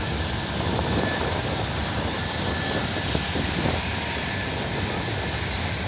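Freight cars of a CN train rolling past on the rails: a steady rumble of steel wheels on track, with a faint high tone running through it.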